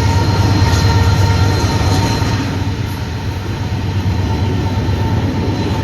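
A diesel-hauled train running by: a steady low engine hum under the rumble of rolling railcars, with a faint thin high tone over it.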